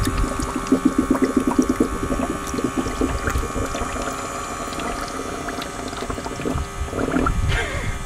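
Small 12-volt submersible pump running in an ice chest of water, pushing water through clear vinyl hose. The water gurgles and rattles through a line that is not completely filled, most busily over the first three seconds.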